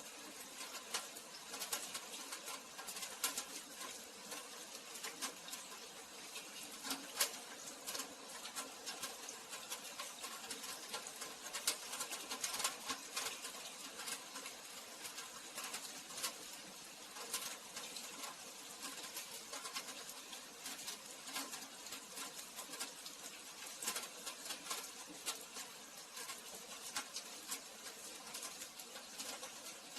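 Steady rain falling, a constant hiss of drops with many sharp individual drop clicks pattering on nearby surfaces.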